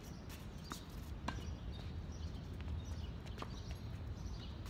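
Tennis rally on a hard court: the sharp pops of racket strings striking the ball and the ball bouncing, several irregularly spaced hits, some close and some far off, with light footsteps. A steady low rumble lies underneath.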